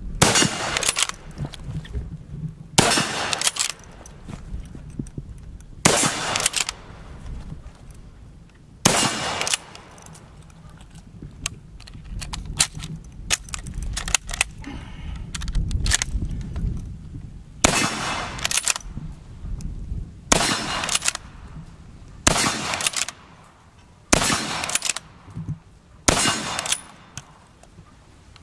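Madsen M47 bolt-action rifle in .30-06, fitted with a muzzle brake, firing about nine shots spaced a few seconds apart, each with a short echo. A gap of about eight seconds with only small handling noises falls midway.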